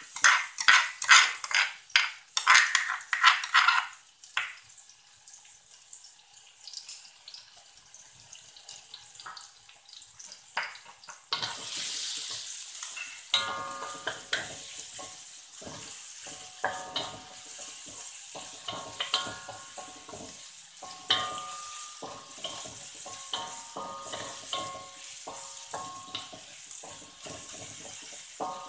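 A metal spoon scrapes and knocks pounded spice paste out of a stone mortar into a wok for the first few seconds. About eleven seconds in, the paste starts sizzling in hot oil, frying steadily while a wooden spatula scrapes and stirs it around the wok.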